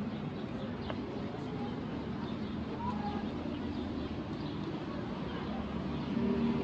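Street ambience: a steady low rumble of distant traffic with faint bird chirps and distant voices, and a car's engine drawing nearer near the end.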